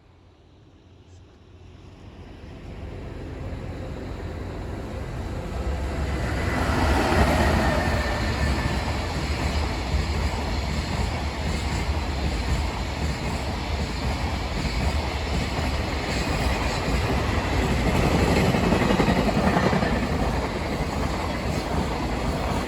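Electric-locomotive-hauled freight train approaching and rolling past, building from faint to loud over the first six seconds or so. It then holds a steady loud rumble and rattle of wagons going by.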